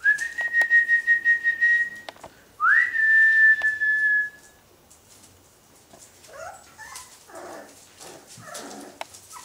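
Two long, loud whistled notes on a steady pitch, the second opening with a quick upward swoop. They are followed, about two seconds later, by a few soft whimpers from boxer puppies.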